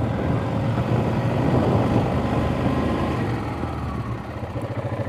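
ATV engine running under way, then easing off about four seconds in to an even, rapid throbbing idle.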